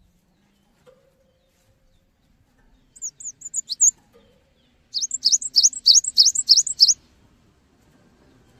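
Cinereous tit (gelatik batu) singing. A short burst of quick high twittering notes comes first, then about a second later a fast run of around eight sharp, steeply falling notes, about four a second.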